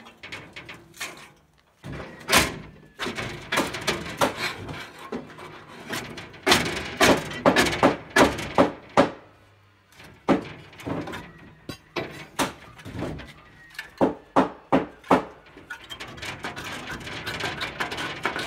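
Rusted steel trailer fender being wrenched back and forth by hand and torn free, with many rapid sharp cracks and clanks of bending, tearing sheet metal. They come in two dense runs with a short lull about ten seconds in.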